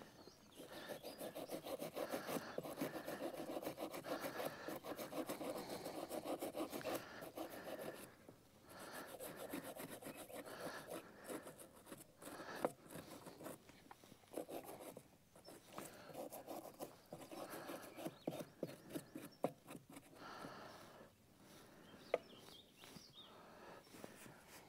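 Small hand brush scrubbing blue-green corrosion off a battery cable's terminal lug: quick back-and-forth scratching strokes in spells of a few seconds with short pauses between.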